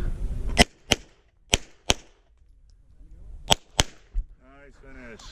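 CZ SP-01 pistol firing three quick pairs of shots, a fraction of a second between the two shots of each pair.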